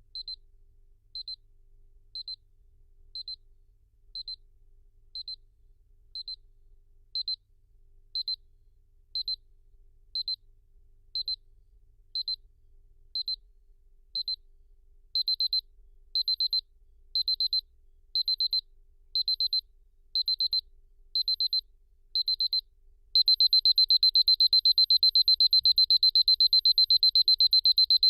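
Seiko KR501 clock's electronic alarm sounding its progressive beep: high single beeps about once a second that get louder twice and grow longer, then change for the last five seconds into a fast, loud run of beeps.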